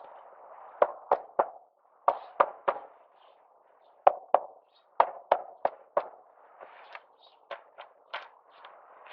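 A series of sharp, ringing knocks or taps in quick groups of two to four, about three a second, with short gaps between the groups and softer taps near the end.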